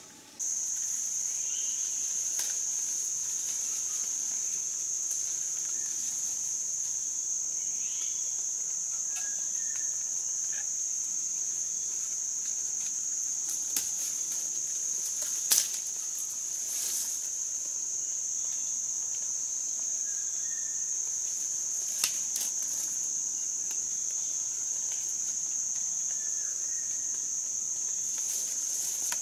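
Insects droning loudly and steadily in tropical forest, one continuous high-pitched shrill that sets in just after the start. A few sharp snaps or clicks cut through it, the loudest about halfway.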